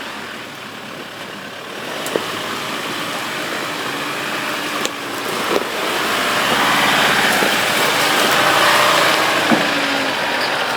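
4WD ute driving slowly over a rough dirt track: the engine runs under a steady haze of tyre and track noise, with a few sharp knocks, getting louder in the second half.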